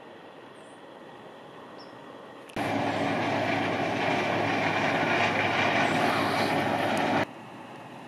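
Combine harvester running steadily: a loud mechanical drone with several steady tones in it. It cuts in suddenly about two and a half seconds in and stops just as suddenly under a second before the end; before it there is only faint outdoor background noise.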